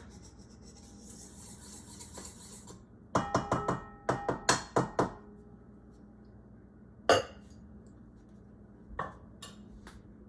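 Kitchen utensils and dishes clinking: a quick run of metallic clinks with a brief ring, then a single louder knock, then a few light clicks.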